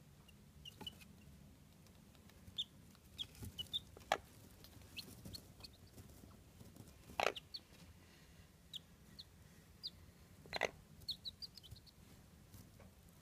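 Chabo (Japanese bantam) chicks peeping in short, high cheeps scattered throughout, while brooding under a hen, with a few louder short clucks from the hen.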